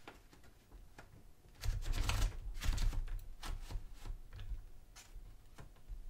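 A sheet of paper being fed into a Smith-Corona Silent-Super manual typewriter. After about a second and a half, there is paper rustle, handling thumps and irregular clicks from the platen and carriage as the sheet is rolled in.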